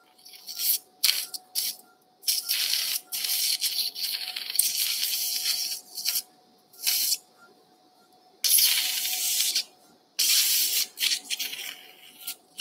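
Surgical suction tip sucking exudate out of a dog's tympanic bulla: hissing in about ten on-and-off spells of up to a second and a half as the tip takes in fluid and air. A faint steady tone runs underneath.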